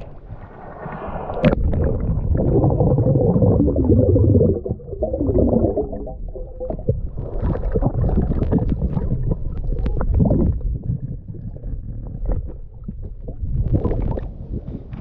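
Muffled underwater sound picked up by a camera held below the surface while snorkeling: a dense low rumble of moving water with gurgling bubbles and scattered small clicks, and a single sharp splash about a second and a half in as it goes under.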